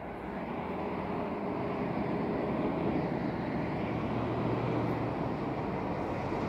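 Distant road traffic: an engine hum that swells over the first couple of seconds and then holds steady.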